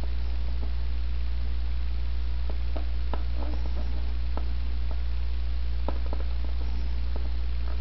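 Steady low electrical hum with faint scattered clicks and scratchy rubbing: fingertips pressing and smoothing a vinyl warning decal onto a plastic panel.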